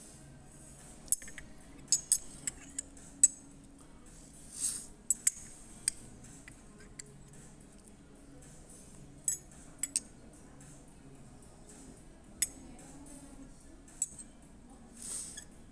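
A metal spoon clinking and scraping against the inside of a small white ceramic ramekin, scooping out the last of the food: a dozen or so sharp, irregular taps with a few longer scrapes.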